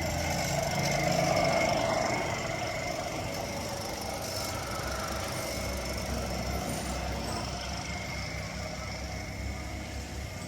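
A car engine running steadily, a little louder in the first two seconds.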